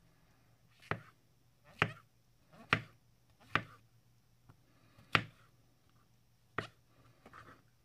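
Böker Outdoor Cuisine III santoku knife slicing a brown mushroom on an end-grain wooden cutting board: six sharp knocks of the blade meeting the board, about one a second, with a short pause midway.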